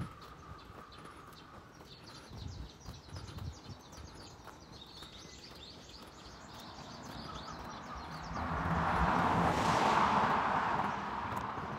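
Early-morning street ambience: small birds chirping in the roadside trees, then a vehicle passing on the road, its noise swelling about eight seconds in and fading near the end.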